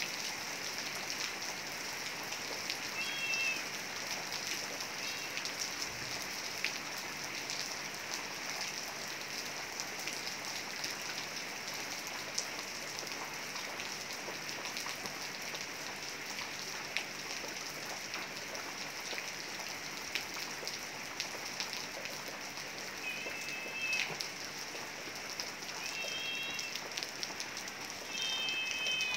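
Heavy rain falling steadily, a dense hiss with individual drops ticking. A few short high chirps come through the rain, once early on and several times near the end.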